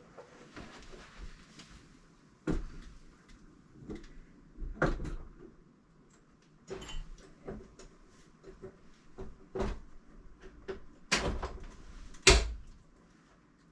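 Handling clunks and knocks from moving a computer monitor and its metal mount about: about six separate sharp knocks with softer rustling and scraping between, the loudest near the end.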